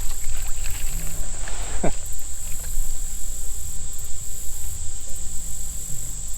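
A steady, high-pitched chorus of insects droning without a break, over a constant low rumble.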